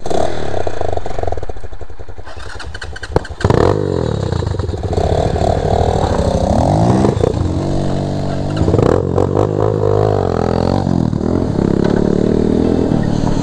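Motorcycle engines revving, the pitch climbing and falling repeatedly, with a sharp rise in loudness about three and a half seconds in.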